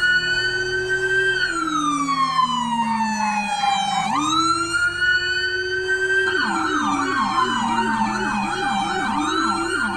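Electronic police siren on an escort convoy. It gives two slow wails, each rising quickly and sliding down over a few seconds, and about six seconds in a fast yelp of about three rises a second joins in.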